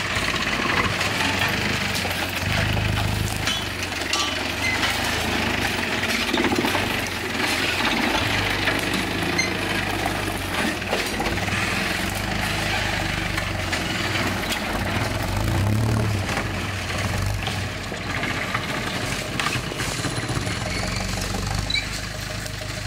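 Lifted Jeep 4x4's engine running under load as it crawls over rough forest ground, swelling in two surges of revs about three seconds and sixteen seconds in, with scattered knocks and rattles from the vehicle.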